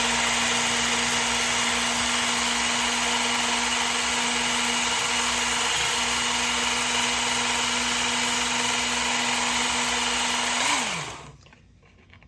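Work Sharp Elite knife sharpener with its Ken Onion blade grinding attachment, the motor and sanding belt running at a steady speed with an even hum and hiss. Near the end it is switched off and the pitch falls as it spins down to a stop.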